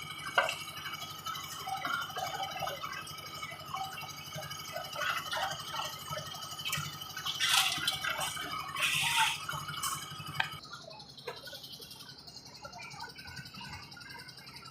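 A machine running with a steady hum and a high whine, with scattered scrapes and knocks; the hum and whine cut off suddenly about ten and a half seconds in.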